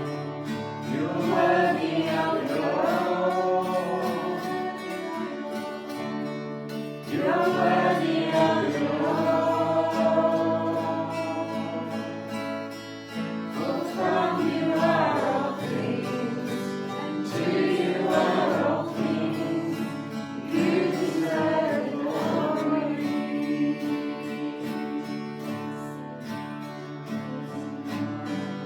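Worship song: voices singing phrases over steady held chords.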